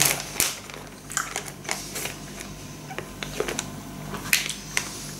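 Irregular crinkling and clicking of a small candy wrapper being picked and peeled open by hand to get at a Hi-Chew chewy sweet.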